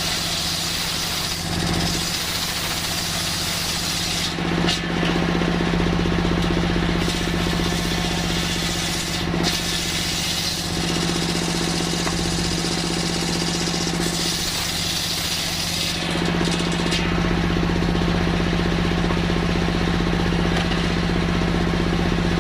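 Circular sawmill running steadily with a constant hum, its blade cutting through coconut-palm wood with a harsh rasping noise. The cutting noise changes character a few times.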